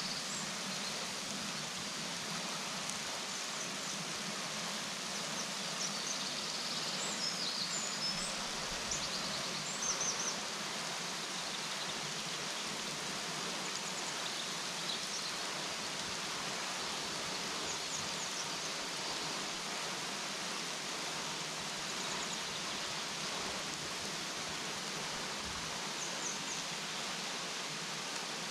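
Henrhyd Falls waterfall: a steady, even rush of falling water. A few faint high chirps sound over it in the first ten seconds or so.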